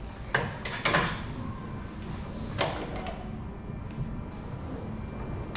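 Plastic retaining clips and the plastic top cover of a 2022 Toyota Tacoma's rear bumper being pried loose, giving a few sharp clicks and knocks in the first three seconds, the loudest about a second in.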